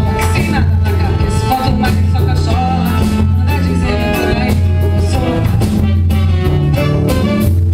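A band playing Brazilian popular music on stage, with a steady bass line, drums and a melody line over it.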